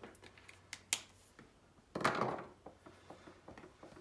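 Handling noise at a drawing desk: a few light clicks in the first second, then a short rustle about two seconds in, with small ticks after, as hands put down a marker and move onto the sketchbook.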